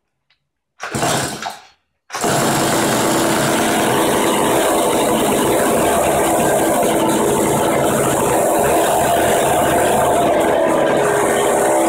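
Freshly rebuilt 1960s Canadien Power Machinery 270 two-stroke chainsaw engine running steadily, with no chain cutting. There is a short burst about a second in, and the steady running starts suddenly at about two seconds in.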